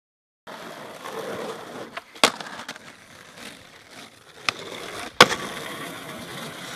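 Skateboard wheels rolling on concrete, starting about half a second in, with sharp clacks of the board about two seconds in and again around four and a half and five seconds in, the last the loudest.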